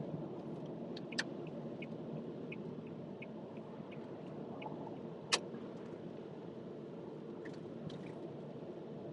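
Steady road and tyre noise heard inside a moving car's cabin at expressway speed. Faint regular ticking runs at about three a second for a few seconds, and there is a sharp click about five seconds in.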